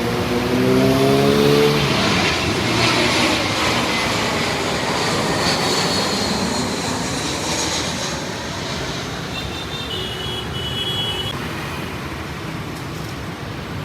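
A jet airliner passing low on its landing approach: a broad roar that peaks in the first few seconds, then a high whine that falls in pitch as it goes away. A smaller engine rises in pitch under it in the first two seconds.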